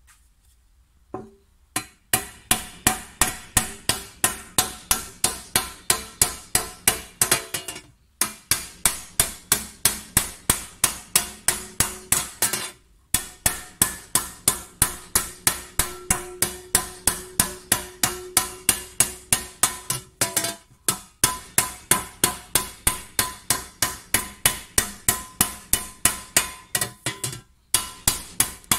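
Small hammer striking a copper tray held over a wooden block, raising the metal: steady blows about three a second, starting about two seconds in, with a few brief pauses. Each blow leaves a short metallic ring from the copper.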